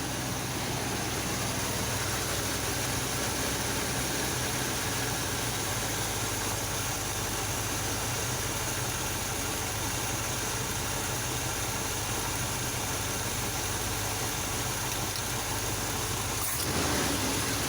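1985 Chevy C10 truck engine idling steadily on a newly fitted Rochester carburetor, its idle speed just turned down from too high. The sound changes briefly and grows slightly louder near the end.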